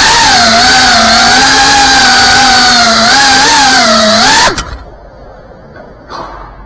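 FPV racing drone's brushless motors whining loudly, pitch wavering up and down with the throttle. About four and a half seconds in the whine falls in pitch and cuts off as the drone lands and the motors stop.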